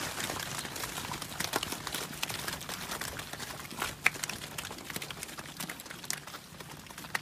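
A group of steers' hooves scuffing and clicking on the rough dirt floor of a pen, over a steady hiss, with one sharper click about four seconds in.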